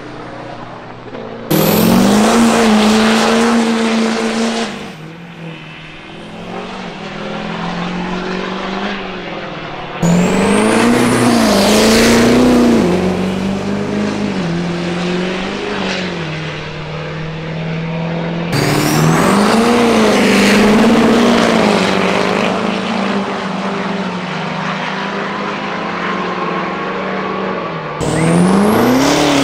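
Diesel drag trucks running hard down the strip, several separate runs cut together so the sound jumps abruptly from one to the next. The engine note in each rises and dips.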